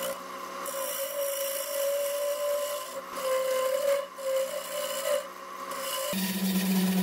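Harbor Freight wood lathe running with a turning tool cutting the spinning mesquite blank: a steady hum under a scraping cut that drops out briefly a few times. About six seconds in, the cutting gives way to a lower hum.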